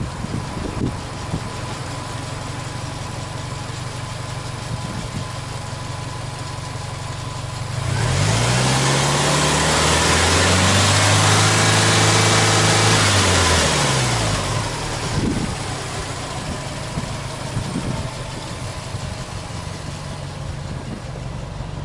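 Subaru Impreza WRX STi's turbocharged flat-four boxer engine idling, then free-revved about eight seconds in: the revs rise quickly, hold for about five seconds and fall back to a steady idle.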